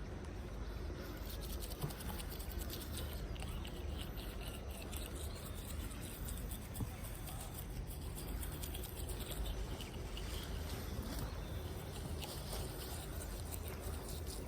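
Toothbrush bristles scrubbing teeth in quick, scratchy back-and-forth strokes, with a low steady rumble underneath.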